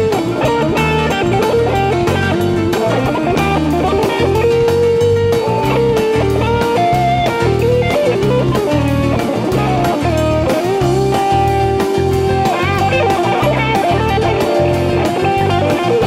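Rock band playing an instrumental jam: an electric guitar lead of long held, bending notes over a steady bass and drum groove, with no singing.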